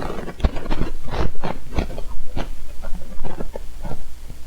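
Irregular handling noises, a run of short knocks and rustles, as a longbow is bent by hand to slip its string into the nock during stringing.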